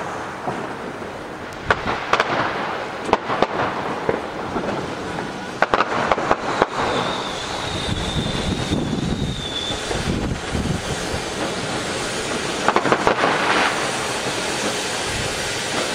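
Ground fireworks fountain spraying sparks with a steady hiss, while sharp cracks of firecrackers go off in scattered clusters, thickest a third of the way in and again near the end. Around the middle a thin high whistle holds for about three seconds.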